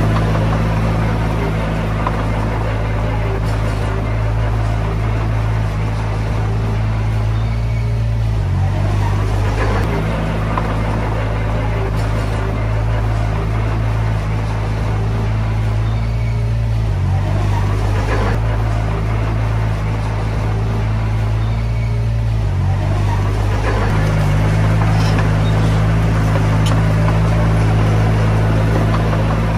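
Komatsu D20P bulldozer's diesel engine running steadily under work, its pitch shifting briefly three times, about every eight seconds.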